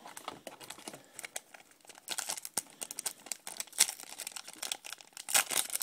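Foil wrapper of a 2007 Upper Deck Future Stars baseball card pack crinkling and tearing as it is opened by hand. The crackling is irregular and gets louder about two seconds in.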